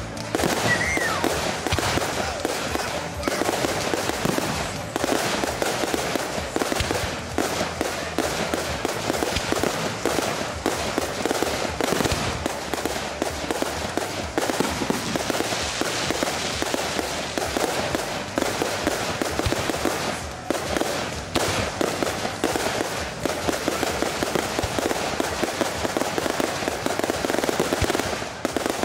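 Fireworks going off: a dense, unbroken crackle of many small bangs with no pause.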